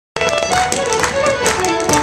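Fiddle playing a lively Celtic step-dance tune, with the quick, sharp taps of a step dancer's shoes striking the floor in time with it.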